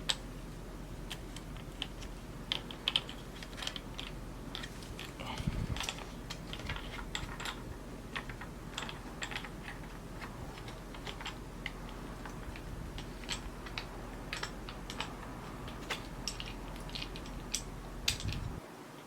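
Irregular small clicks and taps of plastic parts being handled and fitted together while a light kit's mount is assembled and tightened, over a steady low hum that cuts off shortly before the end.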